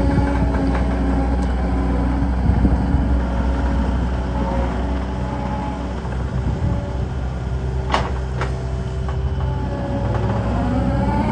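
Cat 289D3 compact track loader's four-cylinder diesel engine running steadily, its pitch rising and falling near the start and again near the end. Two sharp clicks come about eight seconds in.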